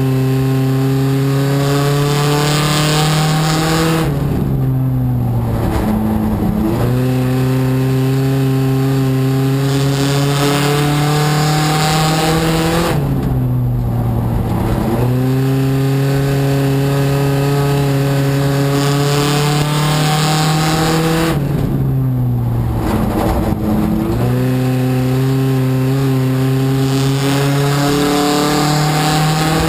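Race car engine heard from inside the cockpit while lapping a short oval. It is held at high revs and creeps up in pitch along the straights, then drops sharply and climbs back as the driver lifts for the turns, three times about eight and a half seconds apart, with a hiss of wind and tyre noise underneath.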